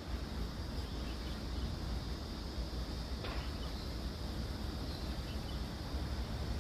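Steady outdoor background noise with a low rumble, and one faint brief sound about three seconds in.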